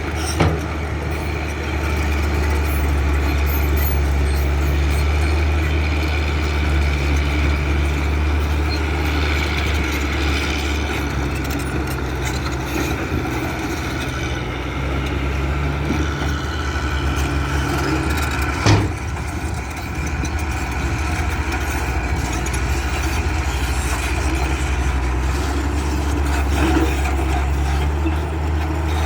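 Heavy diesel construction machinery running steadily, a deep engine drone, with one sharp clank about two-thirds of the way through.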